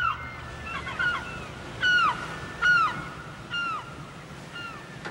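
Seagulls calling, a series of short downward-sliding cries about a second apart, over a low steady hiss of surf.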